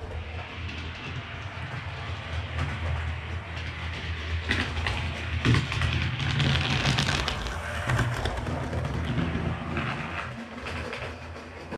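00 gauge model train running on the track: a steady motor hum with wheel rumble and clicks over the rail joints. It grows louder to a peak around the middle as the locomotive comes close, then eases off.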